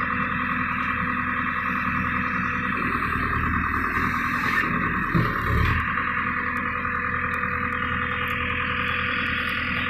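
Diesel engine of a backhoe loader running steadily, with a brief low surge about five seconds in.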